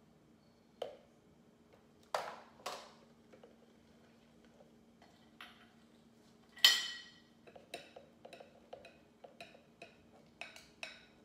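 A glass bowl knocking and clinking against a blender jar while its contents are poured and scraped in. There are a few dull knocks early, one loud ringing clink about seven seconds in, then a run of light taps and clicks.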